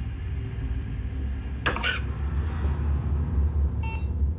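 A low, steady rumbling drone from the soundtrack, with a short hissing whoosh about two seconds in and a faint electronic beep near the end.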